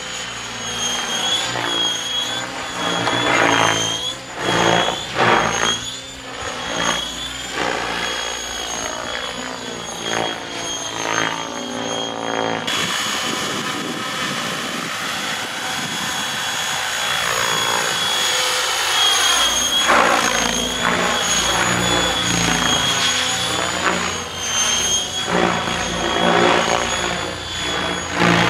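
Radio-controlled model helicopter in flight: a steady high motor and rotor whine, with the rotor sound swelling and fading in waves as the helicopter passes to and fro.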